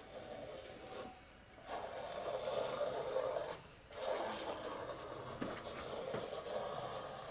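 Painting knife scraping and spreading thick acrylic paint across a canvas in two long strokes with a short pause between.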